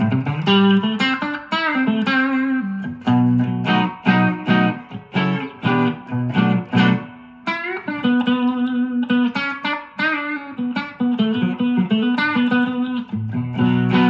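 Line 6 Variax Standard modelling guitar played straight into a Blackstar ID:Core 100 digital amp: a run of picked notes and chords with string bends, with a short break about seven seconds in.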